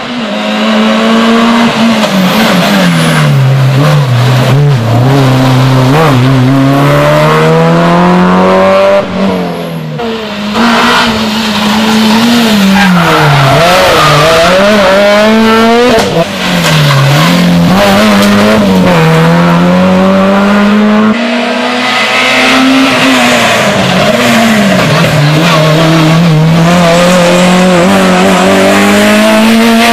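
Rally car engine driven hard, its pitch climbing and falling repeatedly as it accelerates, shifts gear and lifts off, with tyre squeal. There is a brief drop in level about nine seconds in and a short break about halfway.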